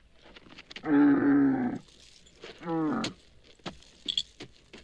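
Camel bellowing twice: a long, level groaning call about a second in, then a shorter call that bends and falls in pitch, followed by faint scattered knocks.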